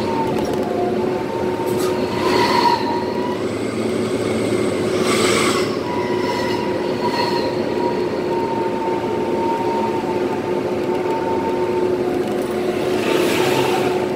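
Twin-turbo diesel truck engine running under way, heard from inside the cab, with a steady whine over the rumble. Three short hisses come through, about two, five and thirteen seconds in.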